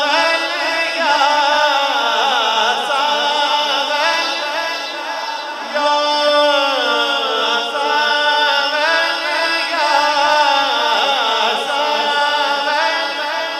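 A male naat khwan sings a devotional naatiya kafi, unaccompanied, into a microphone. He holds long, ornamented melodic lines over a steady low hum.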